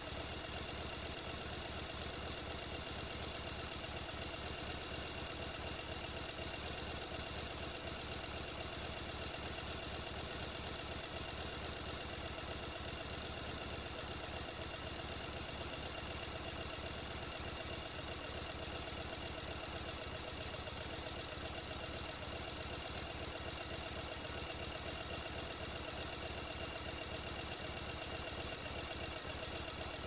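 Sewing machine running steadily at speed, a fast, even stitching clatter without pause.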